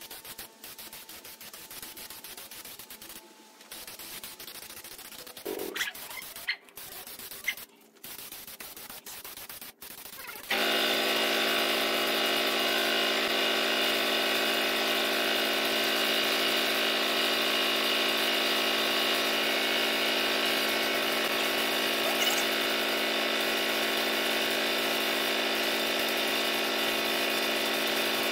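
Air compressor feeding a spray gun, starting abruptly about ten seconds in and then running with a steady, even hum. Before it starts there is only a quieter hiss with a few light clicks and knocks.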